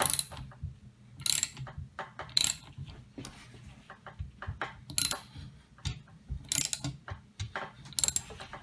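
Screw-type AK barrel press being turned as the barrel is forced into the front trunnion: sharp metallic clicks and creaks in six bursts about one to two and a half seconds apart, with fainter ticks between them.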